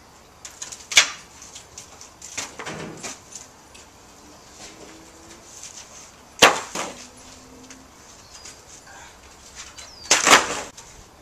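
Rotten wooden fence boards being broken and torn off by hand: sharp cracks and snaps of splitting wood, with splintering crackle in between. The loudest snap comes about six and a half seconds in, and a longer crash near the end.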